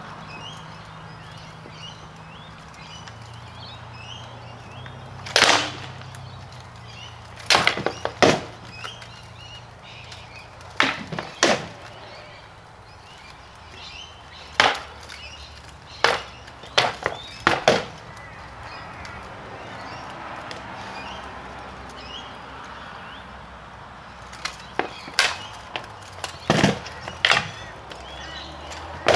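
Rattan swords clashing against wooden shields and each other in SCA heavy-combat sparring: sharp wooden cracks, sometimes single and sometimes in quick runs of two to five, with pauses of a few seconds between exchanges.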